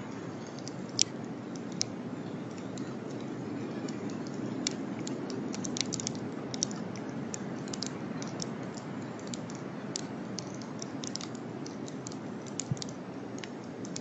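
Irregular sharp clicks and ticks, a few of them louder, over a steady low hiss.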